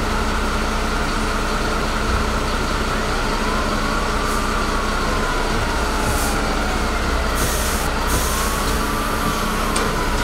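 MAN fire engine's diesel running steadily in the station garage, with its siren wailing in slow rising-and-falling sweeps, twice. A couple of short hisses come around the middle, like air released from the brakes.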